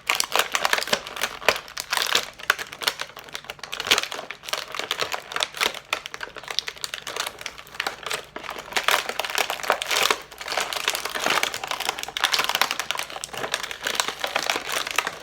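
Plastic packaging crinkling and crackling as an action figure is worked out of its box, in a steady run of irregular crackles.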